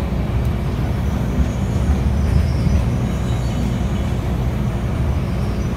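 Steady low rumble of an MTR Disneyland Resort Line M-Train running along the track, heard from inside the passenger car.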